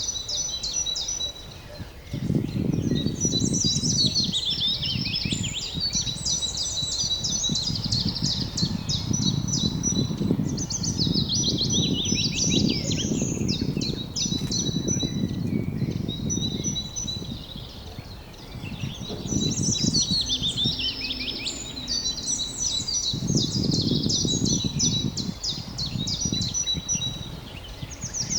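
Several songbirds singing and chirping at once, in rapid runs of repeated high notes, over a low rumbling noise that swells and fades every few seconds.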